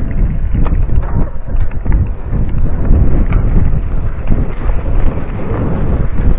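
Wind buffeting the microphone of a mountain biker's action camera during a ride on a bumpy dirt singletrack, a loud steady rumble broken by frequent knocks and rattles as the bike jolts over the ground.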